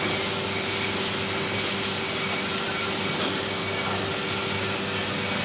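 Steady drone of running machinery: a constant hum with an even hiss over it, unchanging throughout.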